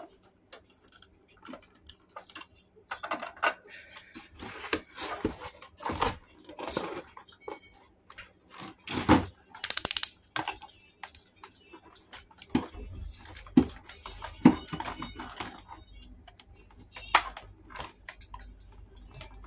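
Hands handling a plastic toy and its cardboard box: irregular clicks, taps and rustles of plastic on cardboard as the plastic tie holding the toy in the box is worked loose, with a louder stretch of scraping rustle about nine to ten seconds in.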